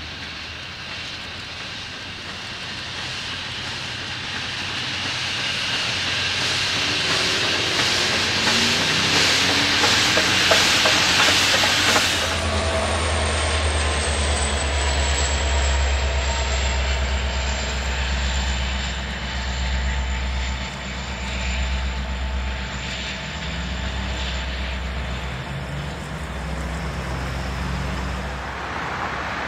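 Union Pacific Big Boy 4014, a 4-8-8-4 articulated steam locomotive, working past with a short test train: its exhaust beats grow louder and peak about twelve seconds in. Then the train's cars and a trailing diesel locomotive roll by with a steady low rumble.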